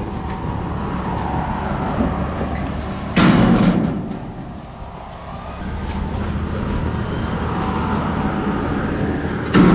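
Tractor-driven straw blower running steadily as it blows chopped straw bedding across a calf pen, with two short, louder surges, one about three seconds in and one at the end.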